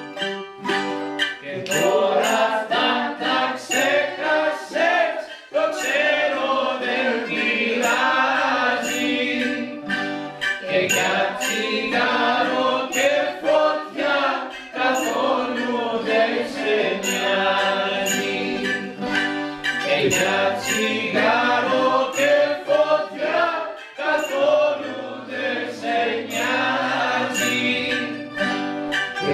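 A group singing a rebetiko song in Greek in unison, accompanied by several bouzoukis plucked and strummed together.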